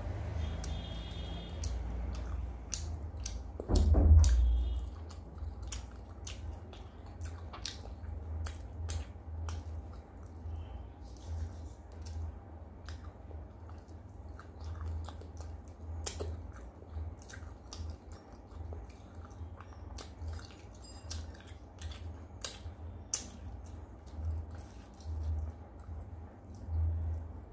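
Close-up chewing and wet mouth smacking of a person eating rice and curry by hand, with many small clicks. A dull low thump stands out about four seconds in.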